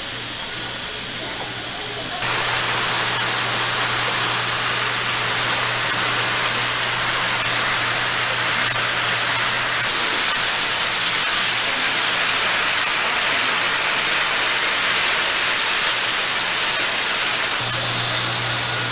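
Rows of thin-sliced pork rolls sizzling on a hot flat-top griddle: a steady hiss that jumps louder about two seconds in, with a low steady hum underneath.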